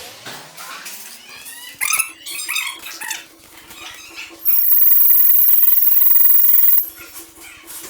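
A fire alarm sounder on a system under test gives one loud, steady, high tone for a little over two seconds, starting past the middle and cutting off suddenly. Before it come shorter squeals that slide up and down in pitch.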